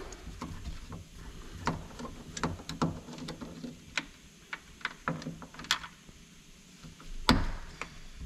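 Torx 30 driver working the bolts that hold a door mirror, with a run of short, irregular metal clicks and clinks as the bit seats and the bolts turn and come out. The loudest knock comes near the end.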